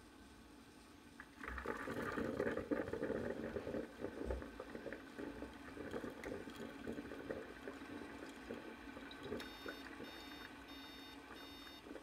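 Ninja drip coffee maker starting a brew, with water gurgling and hissing through it, slowly fading. Near the end come five short high beeps as it stops brewing: the "five beeps of death" error, which the owner puts down to air trapped in the water line.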